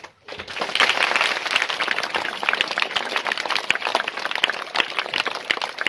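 A crowd of schoolboys clapping in applause: dense, irregular hand claps that start a moment in and keep going.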